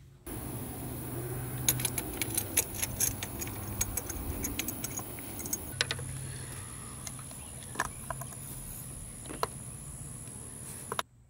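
Metal hand tools and parts clicking and clinking irregularly during scooter reassembly: a quick flurry of sharp clicks in the first few seconds, then a few scattered clicks, over a steady hum and hiss.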